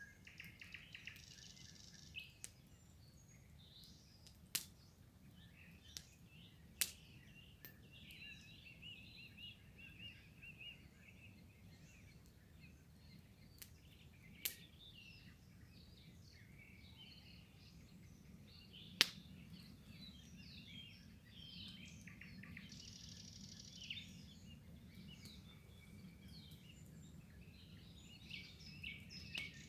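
Several wild birds chirping and singing over a faint, steady low rumble, with a few sharp clicks, the loudest about two-thirds of the way through.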